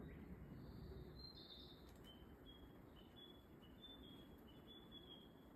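Faint bird song: a longer high note in the first two seconds, then a run of short high chirps at a steady pace, over a low background rumble.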